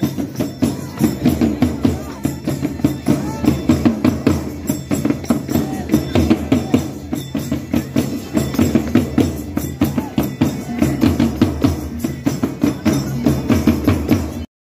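Festival drumming, including a hand-held frame drum, beaten in a fast steady rhythm amid a crowd. It cuts off suddenly near the end.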